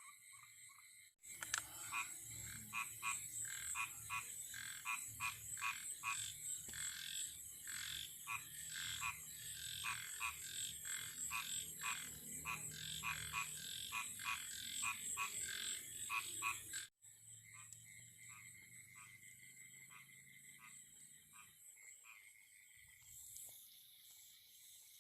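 Frogs calling at night: a chorus of short croaks repeated in quick succession, with a steady high-pitched drone over them. The sound cuts in abruptly about a second in and breaks off sharply near 17 seconds, after which fainter, sparser calls carry on.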